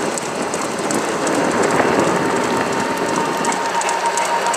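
Golf cart driving along a paved road: steady motor and tyre noise with rattling from the cart, and a thin steady whine that comes in about three seconds in.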